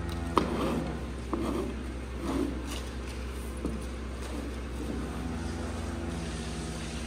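Long-handled barn scraper pushed through wet manure on the alley floor, giving a few short scraping strokes, with a sharp knock about half a second in. A steady low hum runs underneath.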